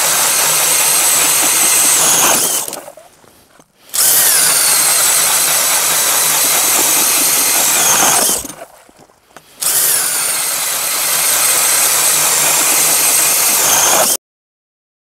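DeWalt cordless drill spinning a KDrill 8-inch ice auger through 8 inches of ice, three holes in a row. Each run lasts three to four seconds and is split from the next by a short pause. The sound cuts off abruptly near the end.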